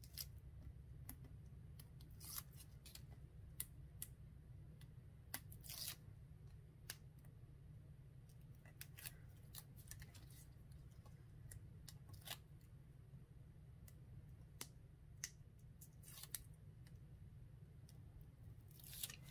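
Faint, scattered ticks and light tearing of paper release liner being peeled off strips of double-sided tape on a card, over a low steady hum.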